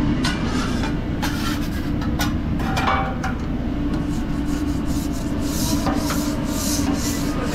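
A steady machine hum, with scattered scraping and clicking on top.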